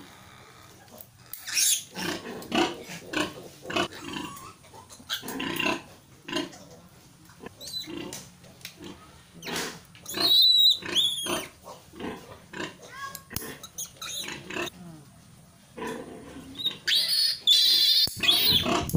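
Newborn piglet squealing and grunting while it is held to have its needle teeth clipped. Short grunts run throughout, with loud high squeals about ten seconds in and again near the end.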